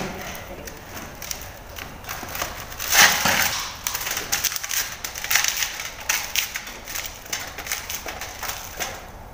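Hands kneading chapati dough in a stainless steel bowl: irregular pressing, rubbing and slapping noises of the dough against the metal, with the loudest stroke about three seconds in.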